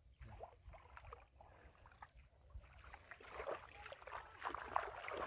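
Faint splashing and sloshing of water, with scattered light knocks, growing a little louder toward the end.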